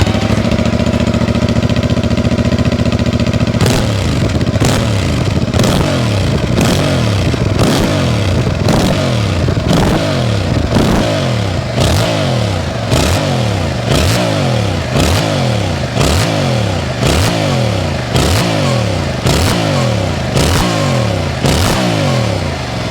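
Yamaha R7's parallel-twin engine on its stock exhaust, idling steadily for a few seconds, then revved in quick throttle blips about once a second, the pitch rising and falling back each time.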